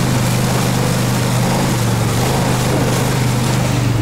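Quad bike's engine running at a steady pace under way, under a steady hiss of rain and wet ground noise. The engine note shifts slightly near the end.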